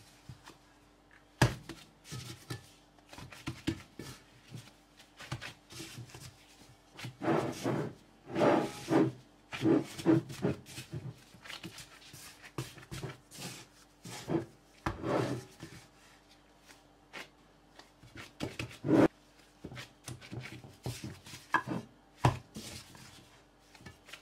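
Sourdough bread dough being kneaded by hand on a plate: irregular sticky squelching and rubbing, with a few sharp taps against the plate.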